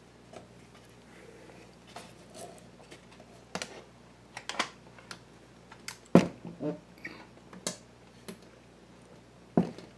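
Scattered clicks and knocks from hands handling the record player's changer chassis and wiring as it is lifted up for a look at the motor, the loudest knock about six seconds in. A faint steady low hum runs underneath.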